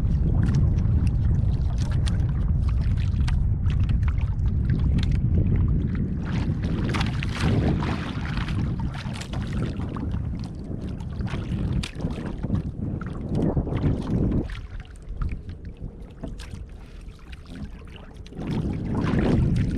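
Wind rumbling on the microphone over water lapping and splashing against the hull of a small outrigger boat drifting at sea. Near the end a wooden paddle strokes through the water.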